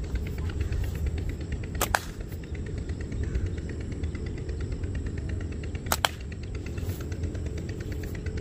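Two slingshot shots, each a sharp double snap, about two and six seconds in, over a steady low rumble.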